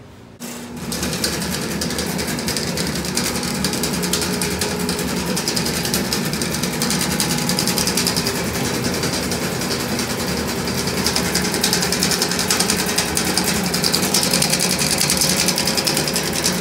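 Electric drain-cleaning machine switched on about half a second in and running steadily while snaking a drain: a motor hum with the spinning steel cable ticking and rattling fast.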